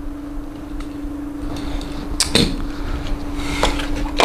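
Small boxes and packaging of 1:64 die-cast model cars being handled on a tabletop: a couple of sharp clicks about two seconds in, then a run of small clicks and rustles, over a steady hum.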